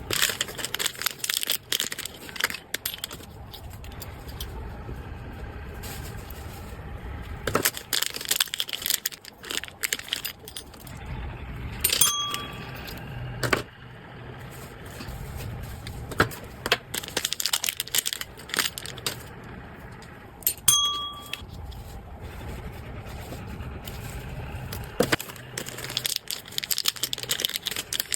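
Handling noises: irregular bursts of rustling and clicking, with two short ringing dings about nine seconds apart, over a low steady hum.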